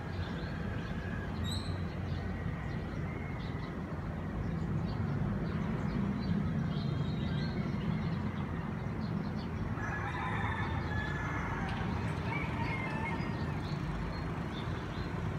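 Steady low hum of city traffic at dawn. A few higher animal calls rise over it about ten seconds in.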